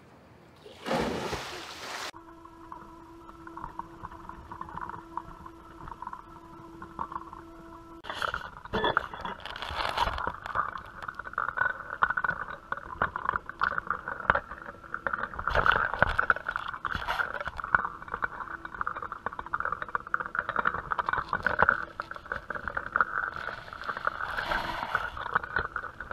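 A person splashing into a swimming pool about a second in, cut off sharply. Then a steady hum made of several level tones, and from about eight seconds in a louder, rough, crackling rush of noise.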